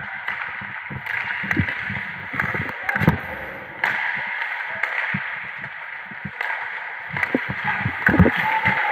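Hockey skate blades scraping and carving on rink ice close by, a steady hiss broken by scattered knocks and thuds.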